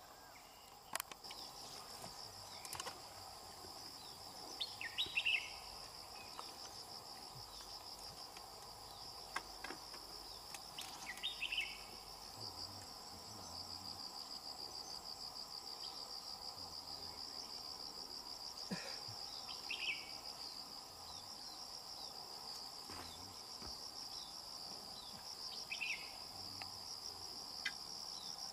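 Insects trilling steadily in a continuous high, fast-pulsing drone that sets in about a second in. A short chirp recurs every several seconds over it, with a few faint clicks.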